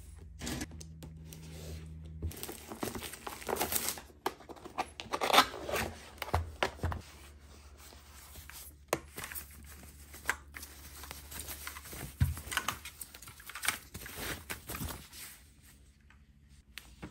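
Unboxing noises from a keyboard's packaging: plastic wrapping being torn and crinkled and the cardboard box opened, then the protective sheet over the keyboard rustling as it is peeled back. The rustles and light knocks come irregularly and are loudest about five seconds in.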